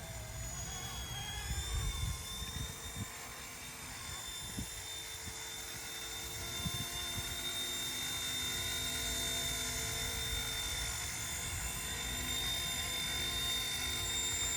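RC Era C189 MD500 micro RC helicopter in flight: its electric motor and rotors give a steady high-pitched whine that gets a little louder in the second half. Gusty wind rumbles on the microphone underneath.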